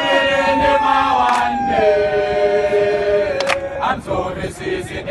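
A group of voices singing together unaccompanied, a chant-like song, holding long notes that slide slowly down in pitch. From about three and a half seconds in, the held notes break into short, sharp sung calls.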